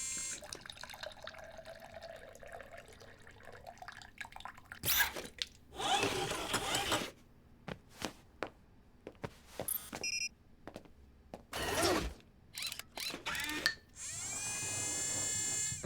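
Robot sound effects: whirring bursts and short electronic blips, with a steady pitched electronic hum for the last couple of seconds.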